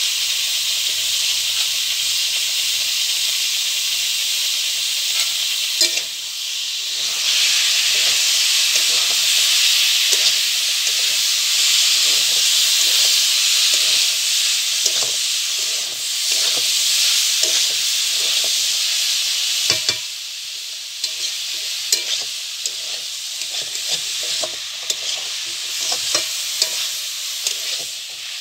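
Diced jackfruit and potato sizzling in oil in a metal kadai while a spatula stirs and scrapes against the pan. The sizzle grows louder about seven seconds in and eases off around twenty seconds, after which the spatula's scraping and knocking stands out more.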